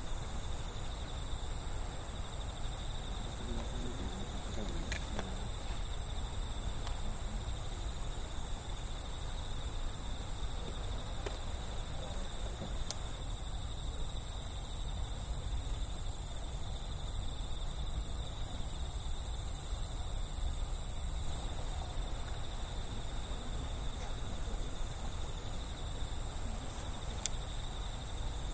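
Steady outdoor night ambience: a low rumble under a constant high-pitched ringing, like a thin insect chorus. A couple of faint ticks are heard, about five seconds in and near the end.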